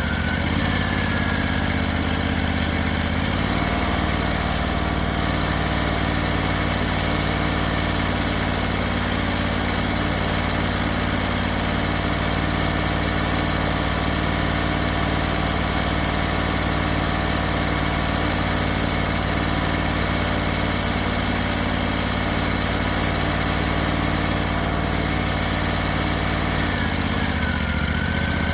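Engine of a hydraulic sawmill running steadily. Its note shifts during the first few seconds and again near the end.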